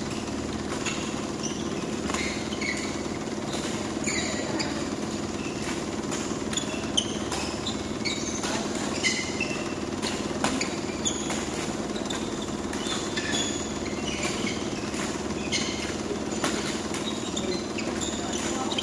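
Badminton rally: repeated sharp cracks of rackets hitting a shuttlecock, several louder smashes in the middle, with short squeaks of court shoes on the synthetic floor, over a steady low hum in the hall.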